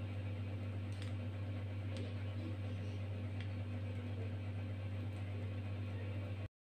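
A steady low hum with a faint hiss and a few faint light ticks, cutting off abruptly to silence near the end.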